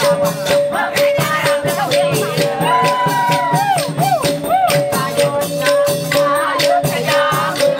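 Upbeat dance music with a quick, even shaker-rattle beat and a steady held note underneath, and a voice singing or calling over it about three seconds in.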